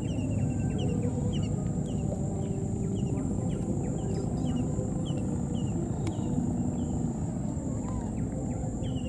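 Forest ambience: a steady low rumble of noise, a continuous high insect drone, and short, high, falling chirps repeating irregularly two or three times a second.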